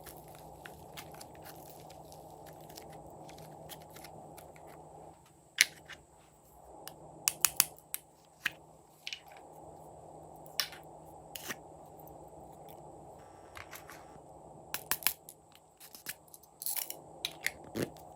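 Glossy slime being pressed and kneaded by hand, giving irregular sharp clicks and pops from air pockets bursting, several in quick clusters. A steady low hum lies under it.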